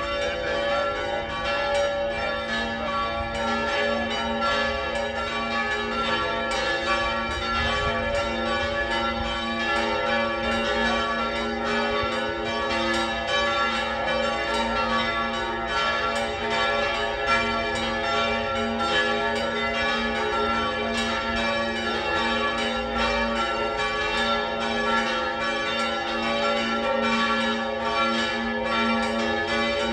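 Church tower bells ringing continuously, strike after strike over a sustained ringing hum. This is the ringing that marks the consecration during Mass.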